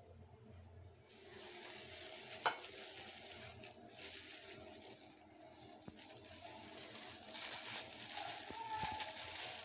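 Thin plastic food-handling gloves crinkling and rustling as hands pick up and handle a baked biscuit, with one sharp click about two and a half seconds in.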